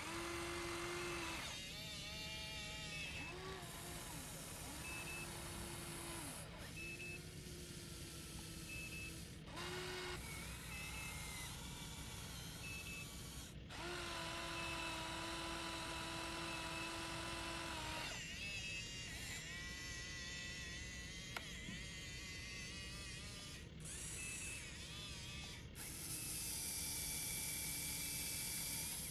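Electric motors of a Huina radio-controlled excavator whining in bursts as the boom and bucket move. Each burst holds a steady pitch, and the sound cuts off and changes abruptly several times.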